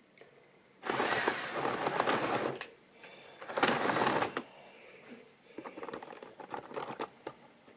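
Tri-ang model railway coaches rolling along sectional track close by, their wheels rattling loudly in two stretches about a second in and about three and a half seconds in, then lighter irregular clicking over the rail joints.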